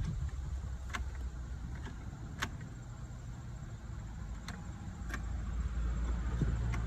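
Car engine idling with a low steady rumble, with a handful of sharp clicks over it; the rumble grows slightly stronger near the end.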